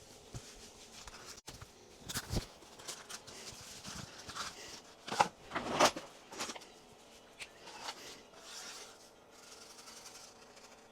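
Scattered handling noises of cake-making: short taps, clicks and rubbing or scraping strokes, the loudest two about five and six seconds in.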